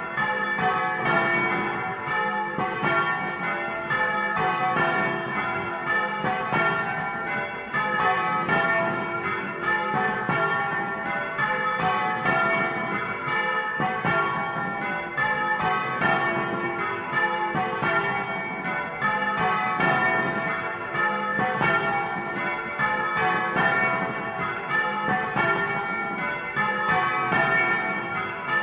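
Several bronze church bells rung by hand by a team of bell ringers, swinging and striking in a fast, continuous festive peal for Easter, with no pause. The bells are heard up close from inside the belfry.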